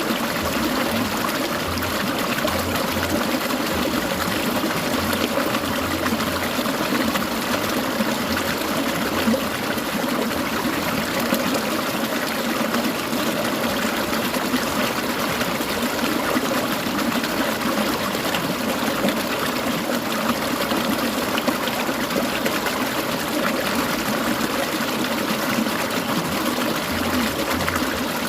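A clear mountain stream babbling and trickling over stones, a steady, even water sound.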